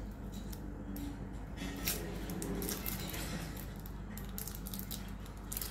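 Light kitchen handling sounds as wraps are assembled: scattered small clicks, taps and rustling of food and packaging.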